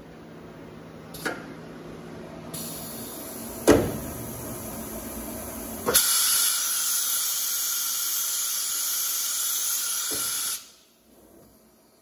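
Pneumatics of a Motionmaster 5-axis CNC router's automatic tool changer: a sharp clunk a little after the start of a faint air hiss, then, about halfway through, a loud, steady blast of compressed air that lasts about four and a half seconds and cuts off suddenly, with smaller clicks around it.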